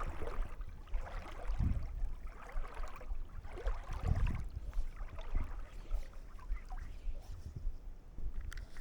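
Canoe on a creek: water swishing and splashing around paddle and hull, with a couple of low thumps.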